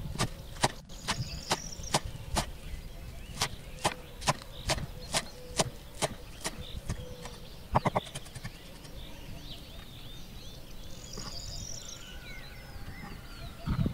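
Large kitchen knife chopping fresh parsley on a wooden cutting board, sharp knocks about twice a second, ending with a quick triple chop about eight seconds in. The chopping then stops and faint bird chirps are heard.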